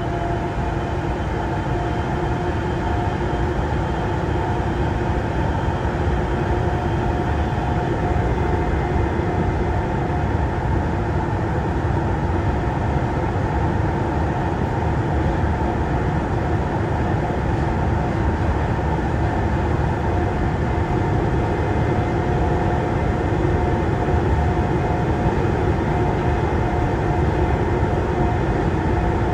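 Inside a Siemens VAL 208 rubber-tyred automated metro car running at speed: a steady rumble of the tyres on the track, with a few steady whining tones from the running gear over it.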